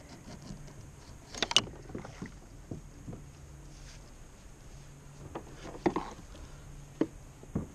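A few hollow knocks and bumps against a plastic fishing kayak as gear and the landing net are handled, the loudest about a second and a half in and a few smaller ones near the end.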